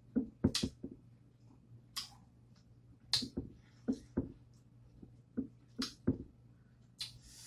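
A person chewing crisp raw salad vegetables: about a dozen short, irregular crunches and clicks, coming in small clusters with pauses between.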